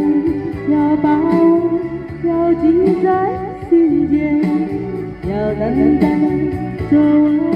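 A woman singing a slow song into a handheld microphone, her voice sliding into held notes, over musical accompaniment with guitar.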